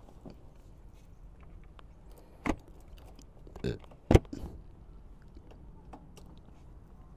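A few sharp clicks and knocks from hands working a Yamaha scooter's ignition key and handlebar, the loudest just after four seconds in. The engine is not yet running.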